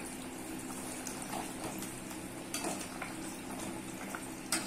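A perforated steel ladle stirring thick chicken curry in a stainless steel pot: wet scraping and a few light metal-on-metal clinks, the sharpest near the end, over a steady low hum.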